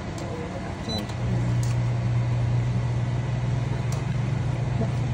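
A steady low hum comes in about a second in and holds over a constant background noise. A few light metal clicks come from a ladle and tongs knocking against the steel pan as the soup is stirred.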